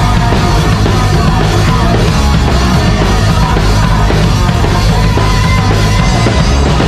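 Live heavy metal band playing loud and steady, the drum kit to the fore: drums and cymbals being struck hard over electric guitar and bass.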